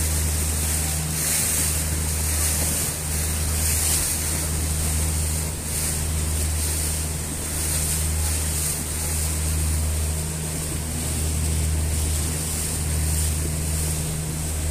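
Motorboat engine running steadily at speed, a constant low drone, with water rushing and splashing along the hull and wake. Wind noise swells and fades over it.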